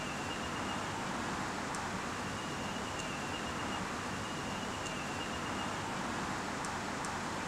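Steady background noise: an even hiss with a low rumble, and a faint thin tone that comes and goes.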